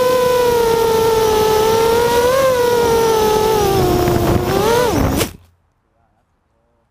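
Mini racing quadcopter's brushless motors (2208 2000 kV) whining in flight as picked up by its onboard camera, the pitch rising and falling gently with the throttle. A little past five seconds in, the whine dips, swoops and cuts off abruptly with a click as the quad crashes into the grass.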